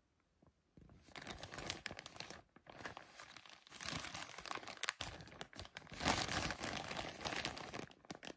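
A clear plastic bag crinkling and crackling as it is handled and turned over in the hands, in several spells after about a second of quiet.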